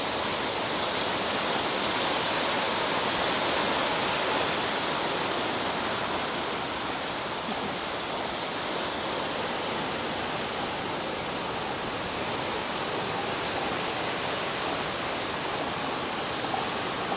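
Steady rushing wash of ocean surf breaking on the beach, swelling slightly a few seconds in.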